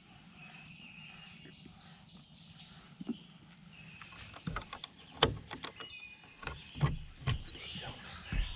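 Irregular knocks and thumps of people moving around and handling gear in a hunting blind, the loudest about five seconds in, with several more near the end. Birds sing faintly in the background.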